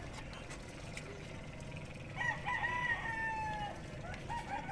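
A rooster crowing once, a single long call that starts about two seconds in and lasts about a second and a half.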